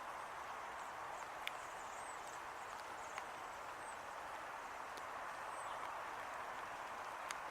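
Light rain falling in a steady faint hiss, with occasional single drops tapping on the camera about four times. Faint, short, high bird chirps come and go in the background.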